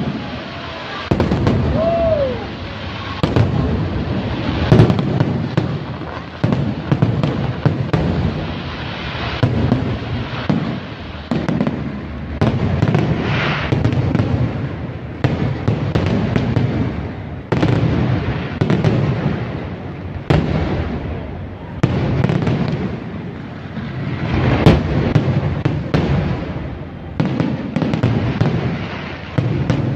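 Fireworks display: a continuous barrage of aerial shell bursts and crackle, with a sharp bang every one to three seconds.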